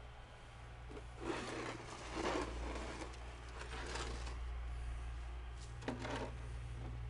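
Rustling and crunching from someone moving about in snow with a handheld camera, in short bursts a second or two apart, over a steady low hum.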